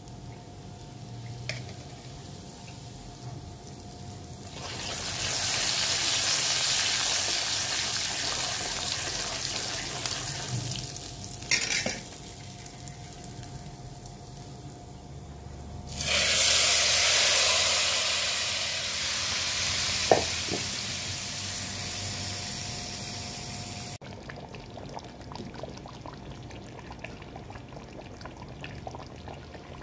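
Hot oil sizzling in an iron kadai as Kashmiri red chilli powder is added and stirred in for the tadka, getting loud twice, from about five seconds in and again about halfway through, each time for several seconds. A short knock comes between the two loud spells.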